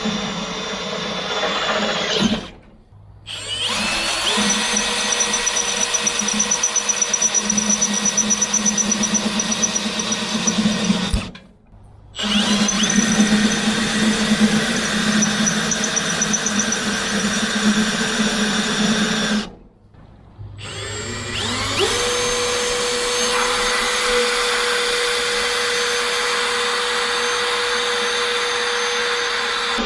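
Power drill with a 7/16-inch bit running steadily while boring bolt holes for a blower rack into a trailer. It runs in four long stretches with brief silent breaks about three, eleven and twenty seconds in.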